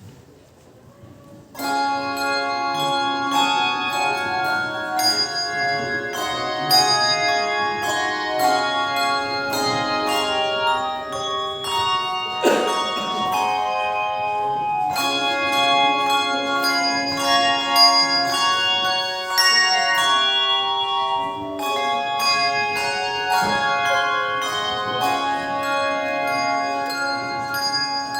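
An ensemble of bells playing a piece of music, with many notes struck in quick succession and left ringing over one another. The playing begins about a second and a half in.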